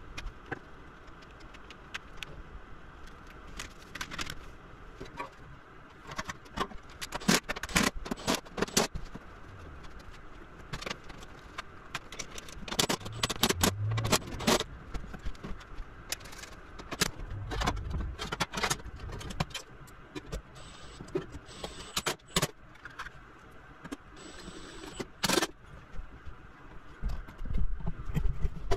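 Metal tools and battery hardware clinking and clattering while a Toyota Prius hybrid battery pack is worked on: a scattered string of sharp clicks and knocks, heavier in the middle and near the end, where the camera is handled.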